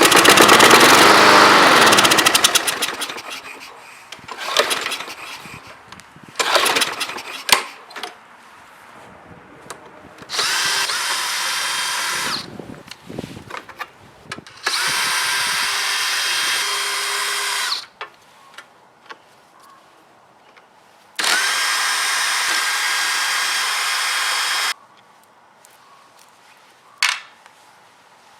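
A gasoline lawnmower engine is pulled over and fails to keep running: a loud burst in the first two seconds that dies away by about four seconds in. Then a power drill runs three times, each for two to three seconds at a steady speed, starting and stopping abruptly, with clicks and knocks of tools and parts in between.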